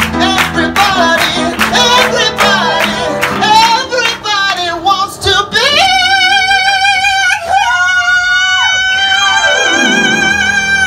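A male singer delivers quick sung runs over instrumental accompaniment, then holds one long high note with vibrato from about six seconds in, the song's final note.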